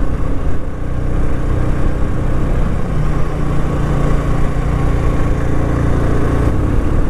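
TVS Apache RTR 160's single-cylinder four-stroke engine running under load on an uphill hairpin road, its note getting stronger about three seconds in, with a steady rushing noise over it.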